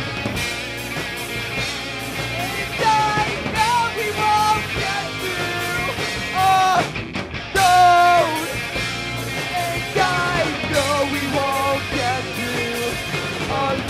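Live rock band playing with two electric guitars and a drum kit, a male vocalist singing from about two and a half seconds in.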